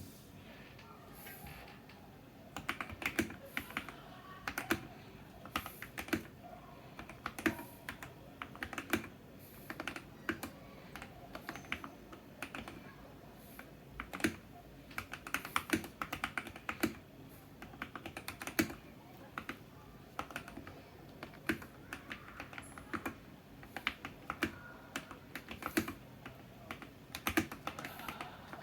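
Typing on a tape-modded tenkeyless mechanical keyboard with Gateron Red linear switches and hole-modded stabilizers: quick, irregular clacky keystrokes that start about two seconds in, with occasional louder strokes.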